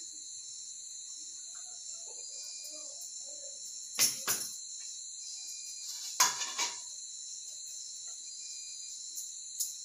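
A steady, high-pitched chorus of crickets trilling at night. Two sharp knocks or clatters, about four and six seconds in, are the loudest sounds; the second has a short ring.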